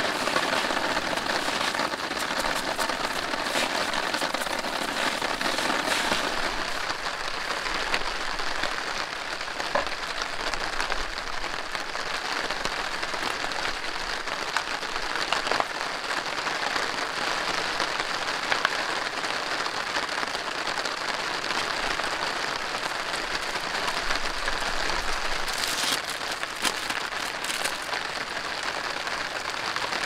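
Steady rain falling, an even hiss of drops with a few brief crackles near the end.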